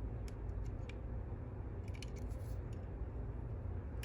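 Small metal clicks and scrapes of a probe tool pushing the pins of a Fontaine French pump lock while it is held under tension, a few scattered ticks with a short cluster about halfway through, over a steady low hum.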